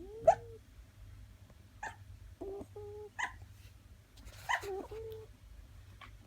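Six-week-old Dandie Dinmont Terrier puppy whimpering in its sleep: about four short, soft whimpers and yips, with a few quick sharp snorts in between. The loudest snort comes right at the start.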